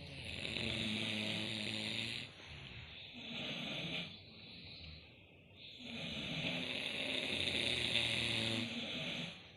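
People snoring in their sleep: two long snores, with a shorter, quieter one between them.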